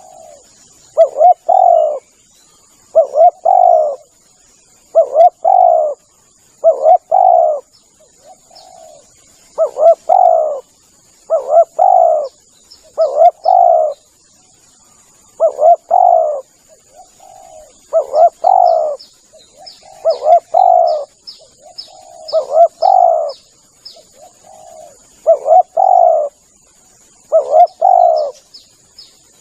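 Spotted dove (tekukur) cooing over and over, each phrase two or three quick coos, repeated about every two seconds, played as a lure call to draw in wild doves. A steady high thin whine and, in the second half, faint rapid high chirps of a small bird run underneath.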